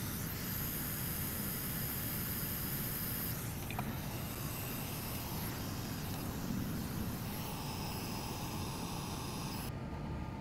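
Steady hissing noise, with one faint click about four seconds in.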